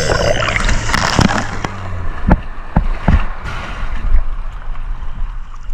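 Water sloshing and gurgling with scattered short knocks, the sound of moving through water while spearfishing.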